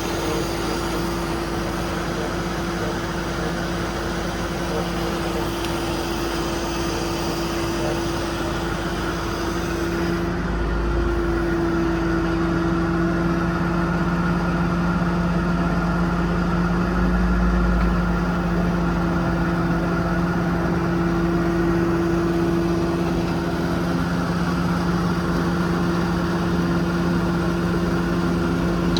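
Cummins diesel engine of a crane service truck running steadily, with a steady whine from the crane's hydraulics being worked. The sound grows louder and the whine shifts in pitch about ten seconds in.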